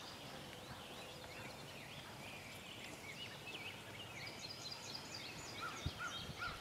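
Several wild birds singing at once, a faint chorus of short chirps and swooping whistles that overlap, with some lower calls near the end.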